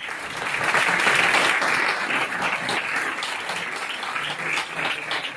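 Audience applauding, growing louder about a second in and then easing a little.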